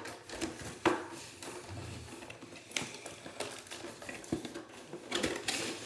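Cardboard action-figure box being handled and pulled open: scattered taps, scrapes and crinkles of cardboard and packaging, with a longer rustle near the end.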